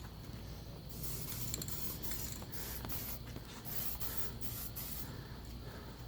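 Aerosol spray paint can spraying in a series of short hissing bursts, starting about a second in.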